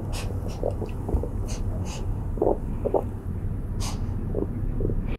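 Handling noise of fabric being worked by hand: fabric strips rustling and brushing, with a few soft clicks over a steady low rumble.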